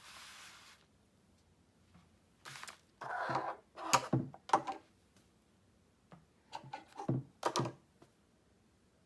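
Handling noises: two clusters of sharp clicks, knocks and rustles, as if a box or other small objects are being picked up and set down, after a brief hiss at the start.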